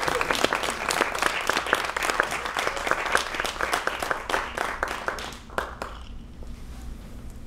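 Audience applauding, the clapping thinning out and dying away about five to six seconds in.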